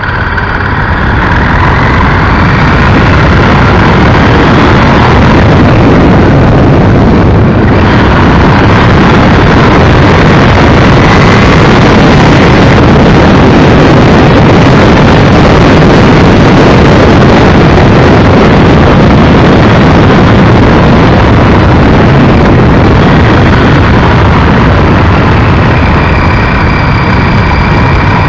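Honda Varadero XL1000 motorcycle on the move: a loud, steady rush of wind on the bike-mounted microphone over its V-twin engine. The rush swells over the first couple of seconds as the bike picks up speed, then holds steady.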